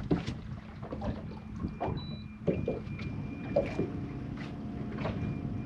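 Small waves slapping against a boat hull, with scattered light clicks and knocks and a faint steady hum.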